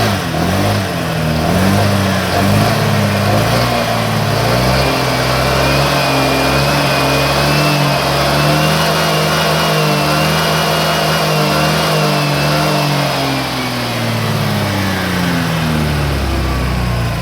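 2018 Honda PCX scooter's single-cylinder, liquid-cooled engine revved up, held at raised revs for about ten seconds with a thin whine above it, then revs falling back toward idle near the end. With a Vario 125 radiator fan fitted in place of the stock fan, it runs without the growling ('ngorok') noise that the stock fan's larger blades caused.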